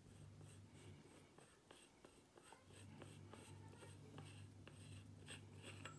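Faint scratching and small clicks of hands turning and handling the air rifle's metal air cylinder and brass end fitting, over a low steady hum.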